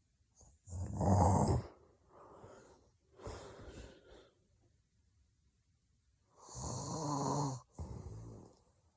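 A sleeping woman snoring heavily: two loud snores about six seconds apart, with softer breaths between and after them.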